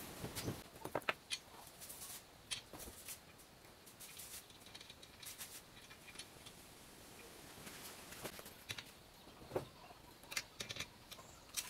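Scattered light clicks and taps of a bolt, small wrench and rubber foot being handled while the foot is fitted to the bracket of an air compressor tank, more of them near the end.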